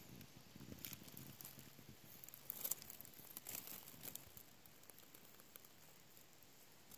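Faint rustling and crackling of dry leaf litter as a garter snake and the frog it is swallowing shift about, with a few sharper small crackles.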